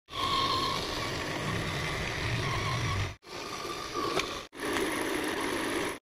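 Small electric motor and plastic gearbox of a toy RC truck whirring as it drives, a steady mechanical whirr with a faint whine, cut off abruptly twice where the clips are edited together.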